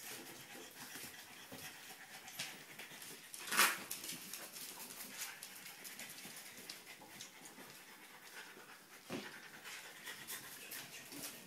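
French bulldog puppies playing with a basketball on a wooden floor: dog sounds and light clicks and scuffles from paws and the rolling ball. One louder, sharper sound comes about three and a half seconds in.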